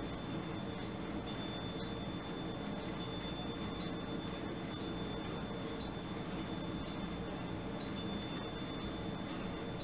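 Animated steam-engine mechanism of a late 19th-century industrial clock running: a short, high metallic ping rings five times, about every second and a half, over faint ticking.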